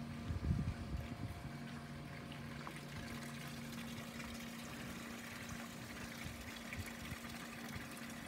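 Pool water pumped through a DIY solar heater's coiled black tubing trickles and splashes out of the return hose into the pool, over a steady low hum from the running pool pump. A few low bumps come about half a second in.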